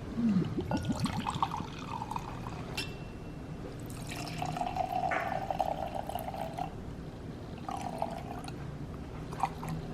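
Red wine being poured from a bottle into a glass: a longer pour starting about four seconds in and a short second pour near the end, after a few light knocks.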